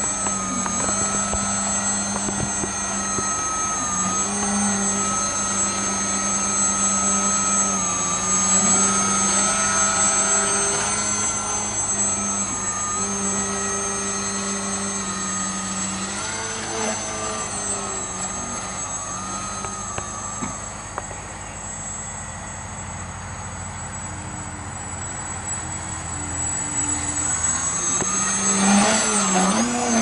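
Electric motor and propeller of a small foam delta-wing RC plane buzzing in flight, its pitch stepping up and down with the throttle. It fades somewhat past the middle as the plane flies off, then grows louder and bends in pitch as it passes close near the end.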